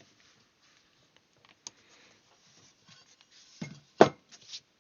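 Handling noise on a workbench: faint rustling and a few small clicks, then one sharp knock about four seconds in, followed by a brief rustle.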